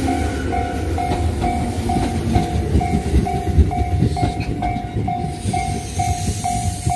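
Japanese railway level-crossing warning bell ringing in an even, steady beat of a little over two dings a second, over the low rumble and clatter of a passing train.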